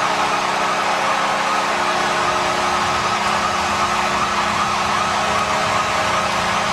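NHL arena goal horn sounding one long steady blast over a crowd roar, with many short rising-and-falling high tones mixed in.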